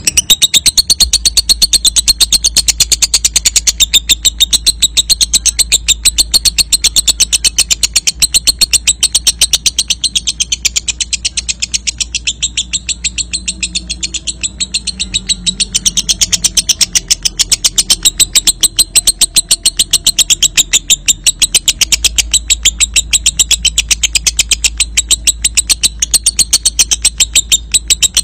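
Lovebird singing a long 'ngekek': an unbroken, rapid chattering trill of sharp high notes repeated many times a second, a little softer in the middle. This long ngekek is the kind of song played as a lure call to set other lovebirds singing.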